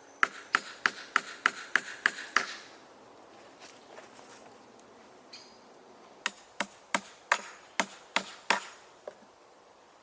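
Hammer blows in two quick runs of about eight strikes each, roughly three a second. In the first run a ringing note rises in pitch from strike to strike.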